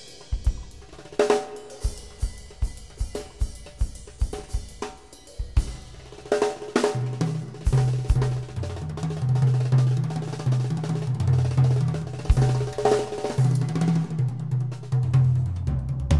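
Instrumental music with a drum kit: a run of kick-drum strokes with snare and hi-hat, then a deep bass line comes in about halfway through under the beat.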